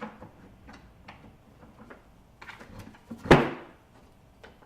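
A wooden board being flipped over and repositioned on a workbench: a few light knocks and scrapes, and one loud knock a little over three seconds in as it is set down.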